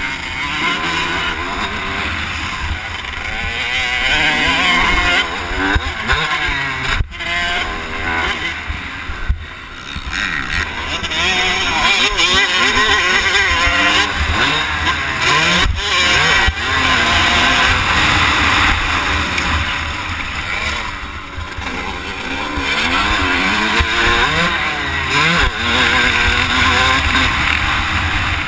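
Motocross bike engine revving up and down again and again as it is ridden around the track, with a strong rushing hiss over it and a few brief dropouts.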